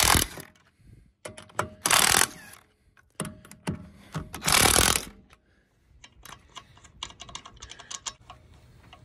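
Tools clattering and clicking as they are handled, with three short, louder rattling bursts in the first five seconds and a run of small, quick clicks after that.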